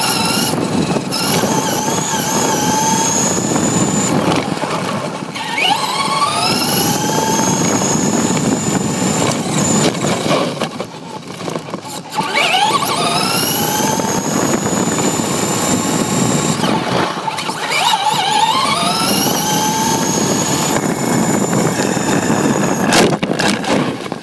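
Electric RC car's motor and gears whining from close by, the whine rising in pitch and levelling off each time the car accelerates, about three times, over a steady rumble of small tyres on asphalt.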